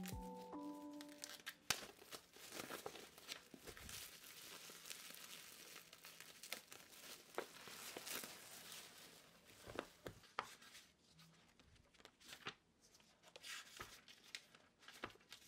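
Plastic wrapping being torn and crinkled off a pad of yellow ruled paper, with many sharp crackles and a few louder snaps.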